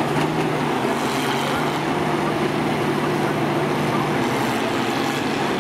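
Several combine harvester engines running together at a steady pitch, a continuous engine drone with no distinct crash.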